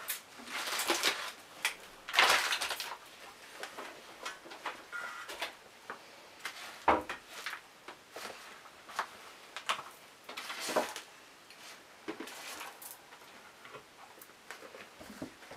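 A kitchen utensil scraping and spreading thick ice-cream mixture around a disposable aluminium foil tray, in irregular strokes with the foil rustling, and one sharper knock about halfway through.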